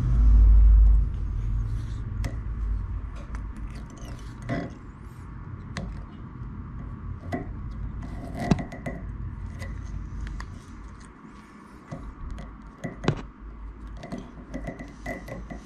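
Hands tying off the thread on a bucktail jig: soft rustles and scattered small clicks as thread and hair are handled. A low rumble is loudest in the first second.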